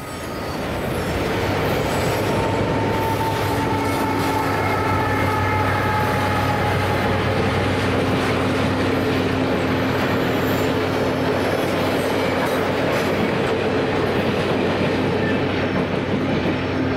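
Freight train passing close by: a steady rumble of steel wheels on rail that builds over the first second. For several seconds from about two seconds in it carries high, thin wheel-squeal tones.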